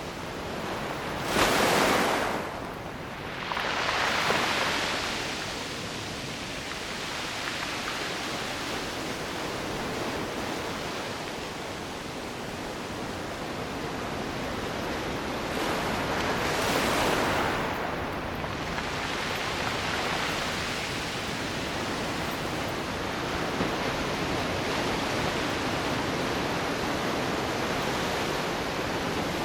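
Sea waves breaking and washing over the shore, with louder breakers about two seconds in, again about four seconds in, and around the middle, over a steady wash of surf.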